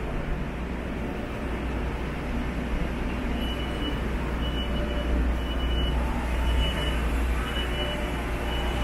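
Low vehicle rumble that grows steadily louder, with a short high-pitched beep repeating about once a second from about three seconds in.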